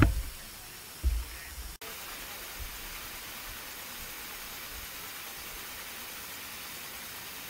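Steady hiss of garden mist jets spraying fine water. In the first two seconds there are two low thumps before the sound breaks off abruptly and the hiss takes over.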